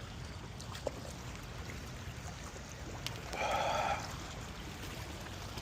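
Steady outdoor ambience beside a river: a low rumble with a soft hiss of wind and water. About three and a half seconds in, one short, even-pitched call or tone rises above it for under a second.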